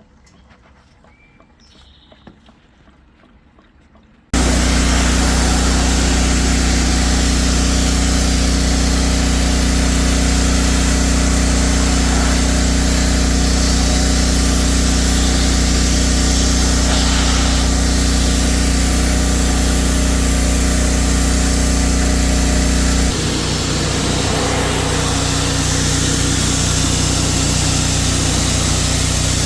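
A power tool or small engine starts abruptly about four seconds in and runs loud and steady, with a constant hum. Its pitch and tone shift slightly near the end.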